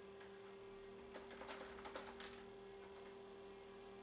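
Faint typing on the IBM 5150 PC's keyboard, with a quick run of keystrokes between about one and two and a half seconds in. A steady hum runs underneath.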